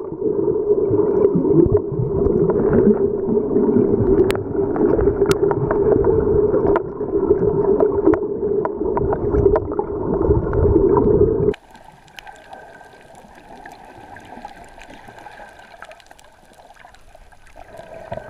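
Muffled underwater rushing and gurgling of water against a submerged camera, loud and steady for about eleven seconds, then cutting off suddenly to a much quieter underwater hush with a faint thin whine.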